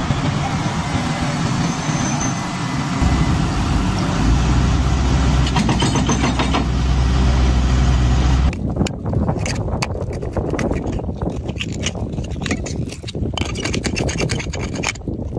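Heavy excavator machinery running, a steady diesel rumble that deepens about three seconds in. It cuts off suddenly, followed by a rapid run of clicks and scrapes as a metal blade works at shellfish in wet mud.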